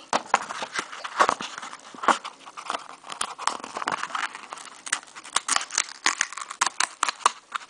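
Perforated card tabs on a pull-tab lottery ticket being pried up and peeled open by fingers: a run of irregular, crisp clicks and crackles of tearing, flexing cardstock.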